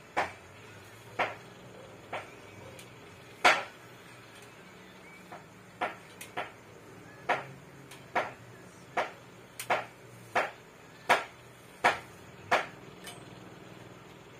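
Hair flat iron's plates clacking shut again and again as it is clamped along sections of hair: about fifteen sharp clicks, spaced irregularly at first and then coming steadily a little faster than one a second.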